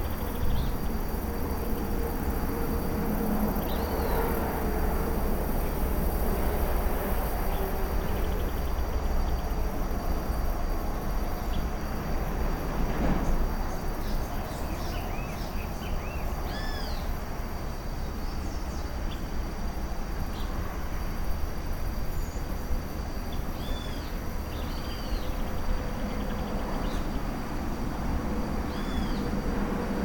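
Tropical forest ambience: a steady high-pitched insect drone and short, arching bird calls repeated in small clusters, mostly in the second half. A constant low rumble lies beneath.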